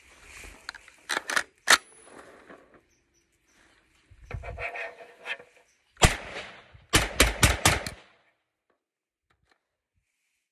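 Norinco Type 97 semi-automatic 5.56 rifle firing: three quick shots about a second in, a single shot near the middle, then a rapid string of about five shots.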